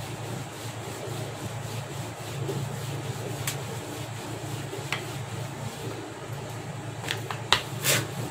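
Rolling pin rolling naan dough back and forth on a floured wooden board: a soft, steady rubbing, with a few short knocks of the pin against the board, mostly near the end.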